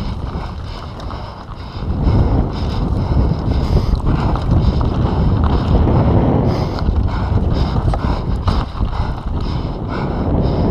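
Mountain bike descending a dirt trail at speed: tyres rumbling over the dirt and the bike rattling over bumps, with wind buffeting the camera microphone.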